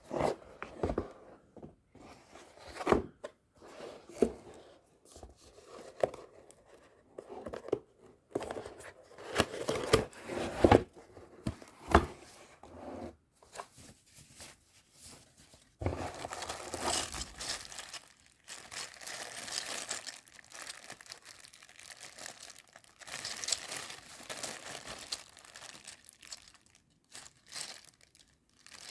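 Packaging being handled: plastic and paper crinkling and tearing, mixed with irregular knocks. The crinkling comes in longer stretches in the second half.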